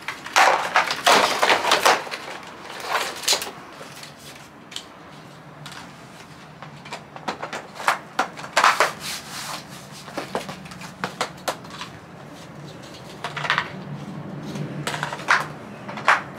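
Plastic IKEA Runnen decking tiles being handled, set down and clicked into one another on a balcony floor: irregular clusters of hard plastic clatters and snaps, busiest in the first couple of seconds.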